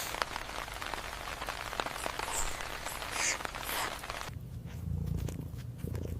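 Rain falling and pattering steadily. About four seconds in it cuts off abruptly, and a cat's low, steady purr follows.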